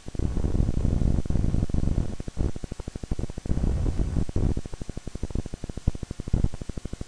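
A low, rumbling drone that flutters rapidly in level, the kind of unexplained 'strange sound' reported as rumbling in the sky.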